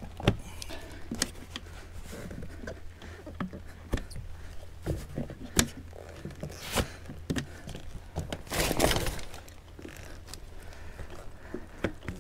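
A boat's canvas canopy side panel being handled and hooked onto small stainless steel hooks on the hull: scattered clicks and knocks of the fittings, with a longer rustle of the canvas about nine seconds in.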